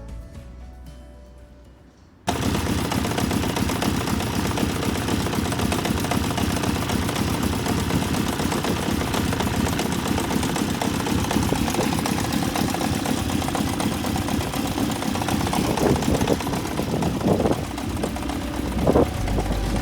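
Honda CBX550F's air-cooled inline-four engine running, a dense, rapid, even stream of firing pulses that cuts in suddenly about two seconds in, after fading music. It is run on fresh oil to check an abnormal engine noise.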